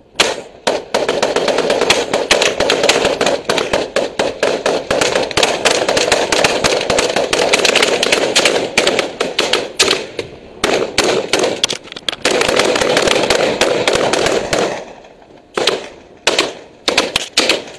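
Rapid, sustained gunfire from rifles shooting from a ship's deck, with shots following close on one another for about fifteen seconds. Near the end it breaks into a few separate single shots.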